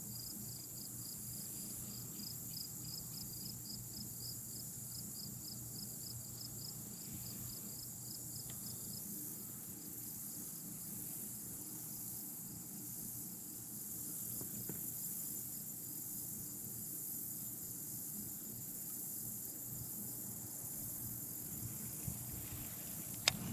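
Insect chirping in a fast, even pulse, steady throughout, over a faint steady hum; a single sharp click near the end.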